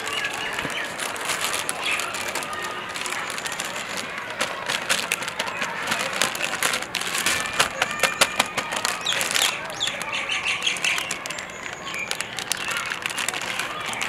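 Birds chirping in short calls over a steady rustling with many small clicks, the crinkle of a thin polythene sheet being handled.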